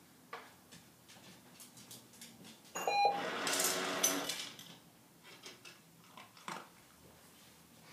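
A small dog moving about a room, with scattered light clicks and taps from its steps, and a louder rustling, clattering burst with a brief metallic ring about three seconds in, lasting about a second and a half.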